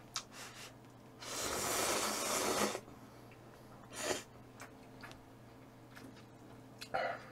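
Cup ramen noodles slurped in one long draw of about a second and a half, followed by two short, softer mouth sounds.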